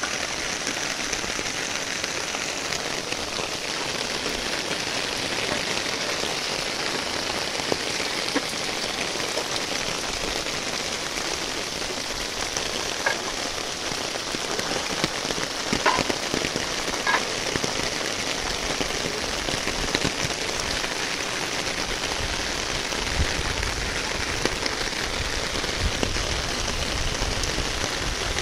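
Heavy rain falling steadily onto a flooded street, an even hiss of drops striking standing water. A few sharper ticks stand out around the middle, and a low rumble comes in near the end.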